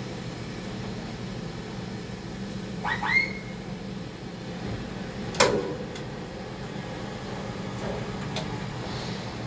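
Steady low machine hum inside a tower crane's cab, with two quick rising squeaks about three seconds in and one sharp click a little past halfway.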